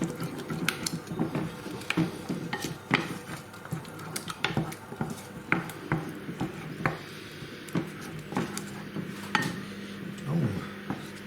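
A utensil stirring a thick spice marinade in a bowl: irregular clinks and scrapes against the bowl.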